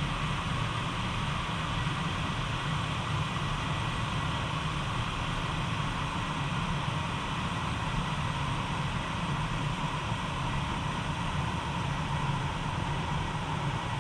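Jetboil canister stove burner running steadily on its gas can, a constant flame roar as it heats water to the boil.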